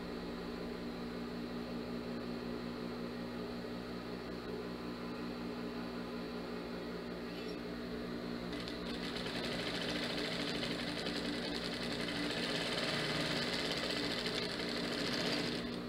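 Industrial single-needle lockstitch sewing machine (Jontex JT-8500) with its motor humming steadily. About halfway through it starts stitching a side seam through cotton fabric, running evenly for several seconds, then stops shortly before the end.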